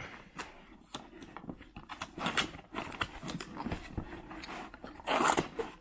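Cardboard being handled and pulled open: the flaps of a small cardboard box rustle and scrape, with light knocks against the pulp packing. A brief louder sound comes about five seconds in.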